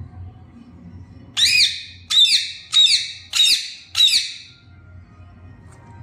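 Indian ringneck parakeet giving five loud, harsh squawks in a row, a little over half a second apart, starting about a second and a half in.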